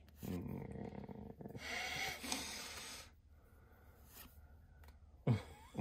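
A man's breathy, non-speech vocal sounds over the first few seconds, then a short sharp voiced sound about five seconds in.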